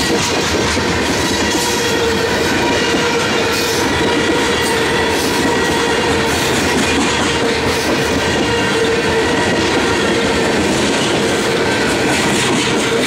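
Covered hopper cars of a freight train rolling past at close range: a loud, steady rumble and rattle of steel wheels on the rails, with a steady whining tone running over it.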